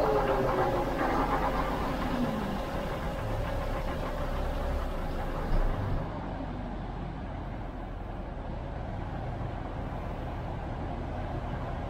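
Old Kromhout-Werkspoor-Verheul VB10 city bus's diesel engine running, heard from inside the bus, with a whine that falls in pitch over the first couple of seconds. About six seconds in it drops to a duller, quieter engine sound heard from outside as the bus drives slowly closer.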